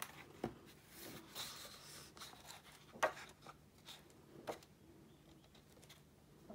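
Pages of a large hardback picture book being turned by hand: a few short paper rustles and flaps, the loudest about three seconds in.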